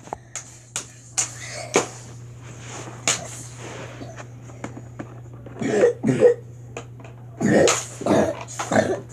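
A child makes rough, cough-like vocal noises in two short clusters, about six and eight seconds in. Before them come scattered sharp clicks of plastic toys being handled, all over a steady low hum.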